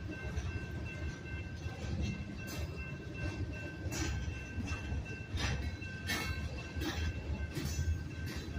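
Freight cars of a slow-moving manifest train rolling over a grade crossing: a steady low rumble with irregular clanks and knocks as wheels pass the crossing joints, and a steady high ringing tone that carries on throughout.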